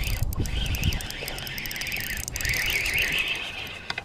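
Fishing reel being cranked, a wavering whir that stops briefly twice, over low wind rumble on the microphone.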